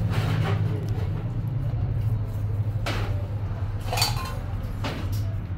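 Four sharp knocks and clinks over a steady low hum. The clink about four seconds in rings briefly.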